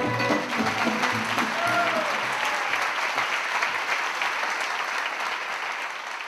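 A large audience applauding steadily, with one voice calling out briefly about two seconds in. The clapping slowly fades toward the end.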